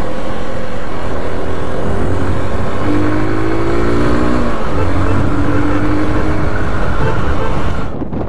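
Motorcycle engine running under way with wind rushing over the microphone; the engine note drops and picks up again a few times, and the sound cuts off abruptly just before the end.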